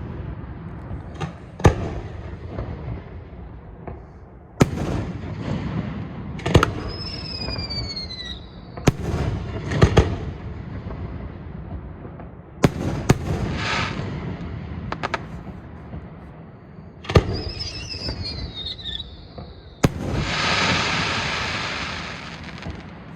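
Fireworks display: sharp aerial shell bursts every second or two, each followed by a low rumbling echo, with two falling whistles and a loud hissing burst lasting about two seconds near the end.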